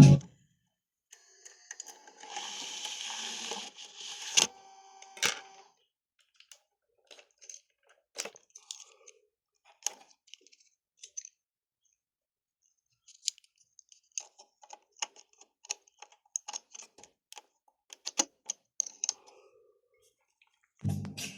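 Scattered small clicks, typical of buttons being pressed on a Pioneer DEH-1800UB car radio head unit, with a brief burst of hiss about two seconds in.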